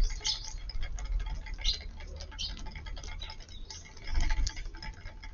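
Eurasian tree sparrows feeding, their beaks pecking at seed in a quick irregular run of light ticks, with a few short high chirps.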